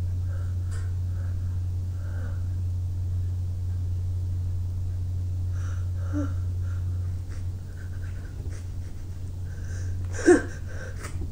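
A person breathing and sniffing, then one short, loud sneeze about ten seconds in, over a steady low hum.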